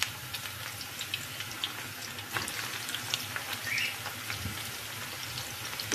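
A fresh batch of eggplant cubes frying in hot oil in a pan: a steady sizzle sprinkled with small crackles and pops.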